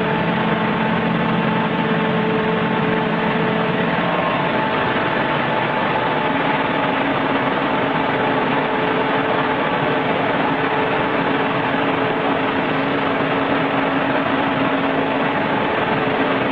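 Steady machinery noise from an aerated concrete block cutting line: an even, unbroken hum and hiss with a few faint held tones that shift in pitch a few seconds in.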